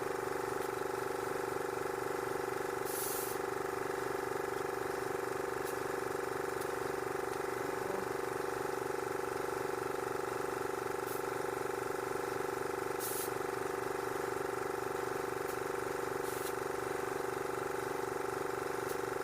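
Small electric air compressor running steadily with a fast, even pulse while it pumps a patched tyre up to 40 psi.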